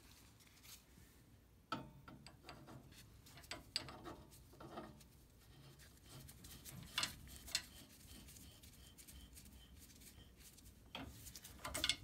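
A threaded steel gas pipe with doped threads being turned by hand into a fitting: faint rubbing and scraping of metal on metal with scattered clicks and knocks, louder knocks near the end.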